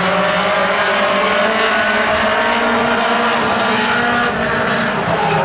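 A pack of mini-stock race cars running at full throttle around an oval, several engines sounding together at steady high revs.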